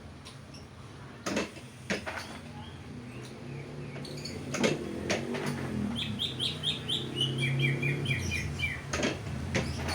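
Caged canary chirping: a quick run of short, high notes from about six seconds in, with a few sharp clicks before it. A low engine hum grows louder near the end.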